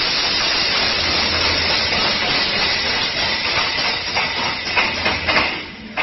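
Automatic wire mesh welding machine running: a steady loud hiss with a low hum underneath and several sharp clicks about four to five and a half seconds in, cutting off suddenly just before six seconds.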